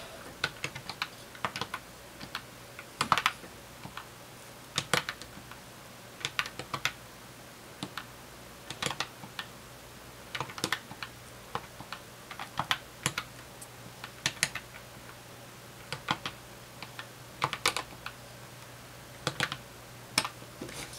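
Keys of a plastic desk calculator being pressed, irregular clicks, singly and in quick runs, as a column of figures is added up.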